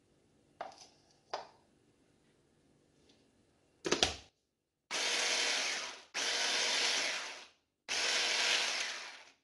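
A hand blender's 1000 W motor unit clatters as it is seated onto its plastic chopper bowl lid, then runs in three short pulses of about a second and a half each, chopping biscuit crumbs with melted butter.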